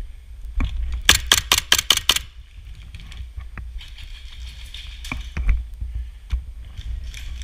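Airsoft gun firing a rapid string of about seven sharp shots, roughly six a second, about a second in, followed by a few single shots later on.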